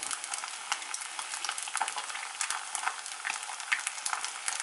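An egg frying in oil in a cast-iron frying pan: a steady sizzle with frequent small crackling pops.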